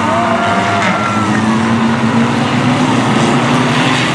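A pack of racing Reliant Robin three-wheelers, their small engines running together as they race around the bend, with a brief high squeal that slides in pitch near the start.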